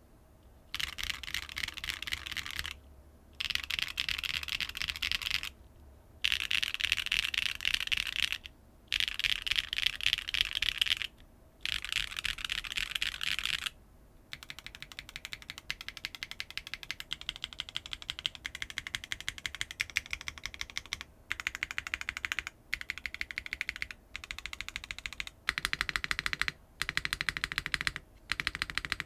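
Clacky BSUN Ocean Tactile mechanical keyboard switches being typed on in a sound test. Fast bursts of keystrokes come with short pauses between them, and about halfway through the typing turns steadier and a little quieter.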